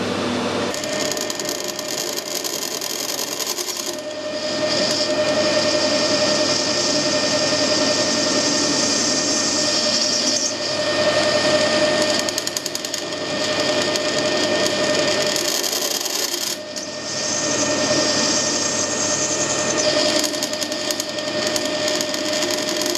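Metal lathe running with a steady tone while a 10mm milling cutter feeds into the end of a steel workpiece to make a flat-bottomed hole. The cutting noise comes and goes in several passes of a few seconds each.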